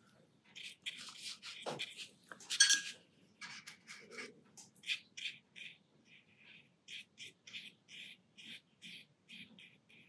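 Watercolour brush working paint onto paper: short, soft scratchy strokes and dabs, about two or three a second. A few louder scrapes and taps in the first few seconds.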